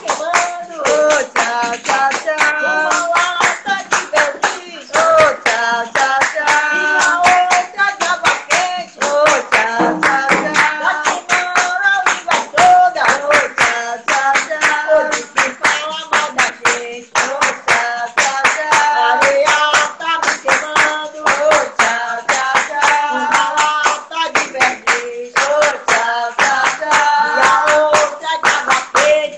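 A voice singing a Bahian folk song over steady handclapping that keeps the beat at about three claps a second.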